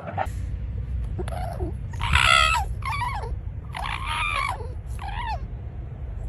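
An animal calling four times, a longer call then a shorter one, twice over, over a steady low rumble.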